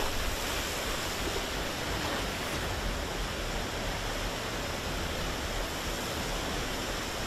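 Steady rushing of a swollen, muddy river in flood.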